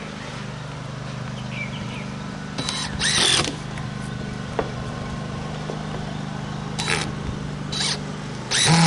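A power drill driving screws in several short bursts, about three seconds in and then three more times near the end, over a steady low hum.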